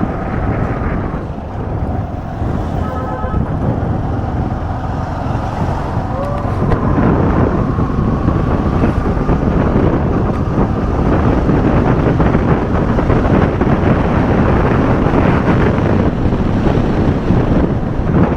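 Motorcycle engine running under way with wind rushing on the microphone. It runs smooth as butter, with no tappet rattle, now that the loose tappet nuts have been tightened.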